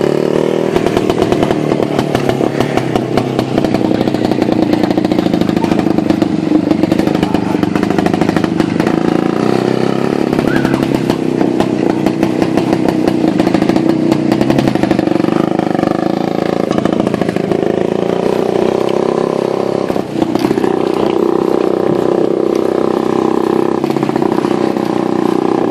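Izh-49 motorcycle's single-cylinder two-stroke engine running steadily, with a rapid even beat. It dips briefly about twenty seconds in.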